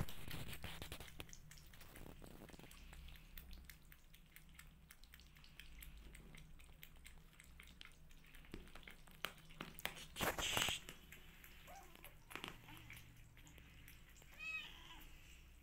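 Kittens eating wet food from a plate: a steady run of small wet chewing and lapping clicks, with one louder noisy burst about ten seconds in and a short mew near the end.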